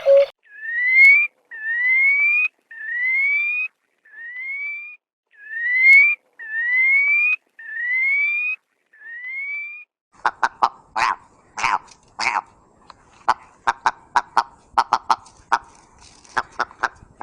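Bird calls: a series of about eight clear whistled notes, each rising in pitch and lasting about a second, then, about ten seconds in, a fast irregular run of short, harsh calls.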